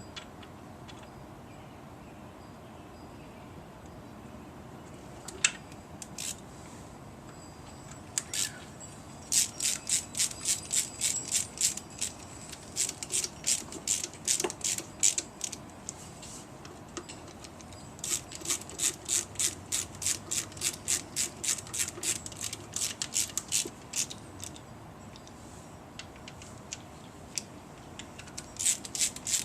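Hand ratchet clicking in quick runs, several clicks a second, as the fasteners holding a Saab Direct Ignition Cassette are tightened. There are three runs, one starting about nine seconds in, one about eighteen seconds in and one near the end, with a few single clicks before the first.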